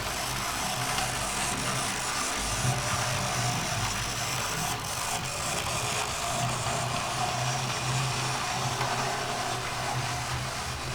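Oxford Rail OO gauge Adams Radial 4-4-2T model locomotive running on track: a steady whirr from its small electric motor and gearing, with the rolling hiss and rumble of wheels on rail. The motor is a weak one that was noisy until lubricated and run in.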